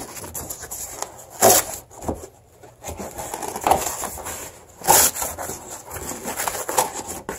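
Corrugated cardboard box being torn open by hand: irregular ripping and scraping, with two louder rips about a second and a half in and about five seconds in.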